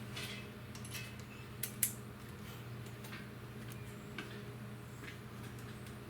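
Scattered small clicks and taps of hand tools and metal fittings being handled, with two sharper clicks close together about two seconds in, over a steady low hum.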